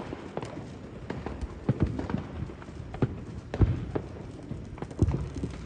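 Fireworks going off at a distance: scattered irregular pops and dull booms, a few each second, with one louder thump near the end.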